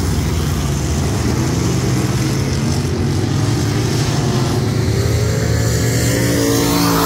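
Several USRA Limited Modified dirt-track race cars' V8 engines running as the pack circles the track, a steady engine sound with one engine note rising near the end.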